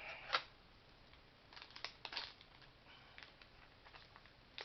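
Plastic-foil MRE beverage powder packet being handled and opened: scattered crinkles and sharp ticks, the loudest just after the start and a cluster about two seconds in.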